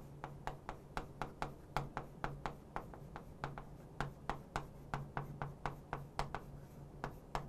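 Handwriting on a board: a quick, uneven run of light taps and clicks, about three or four a second, as each stroke lands, over a faint low hum.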